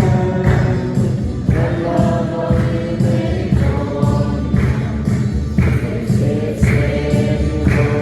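Music: a choir singing a gospel-style song over instrumental backing, the voices holding long notes.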